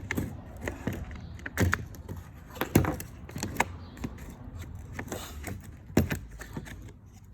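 Power drill on a low setting running steadily while backing out the pressure washer gun's star-head screws, with irregular sharp clicks and rattles of small metal parts being handled. The hum stops shortly before the end.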